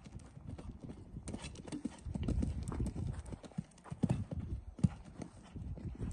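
Horse's hooves cantering on a sandy arena surface: dull hoofbeats in a quick, uneven run, loudest as the horse passes close, about two to five seconds in.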